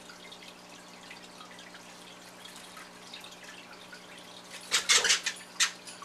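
Caged budgerigars making faint scattered chirps and clicks over a low steady hum. About five seconds in comes a short burst of loud sharp knocks and rattling, with one more knock just after.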